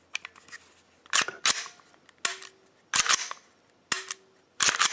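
A series of about seven sharp clicks and snaps at uneven intervals, a few followed by a brief ring, from small parts being handled.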